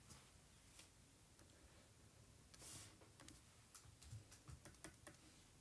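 Near silence: faint room tone with scattered soft clicks from working at the computer, a quick run of them in the second half, and a brief soft hiss about halfway through.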